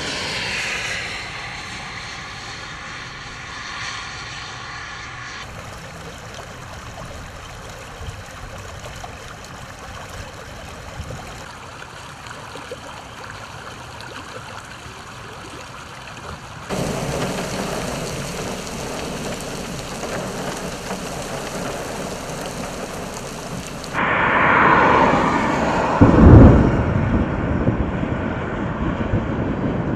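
Stormwater runoff rushing down a grassy ditch, a steady rushing sound. It shifts abruptly a few times as shots change, and near the end a car passes on a wet road with a loud swell of tyre hiss.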